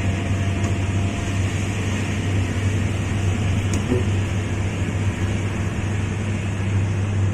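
Steady low drone of a Hino RK8 bus under way, heard from inside the passenger cabin: engine hum and road noise with no sharp events.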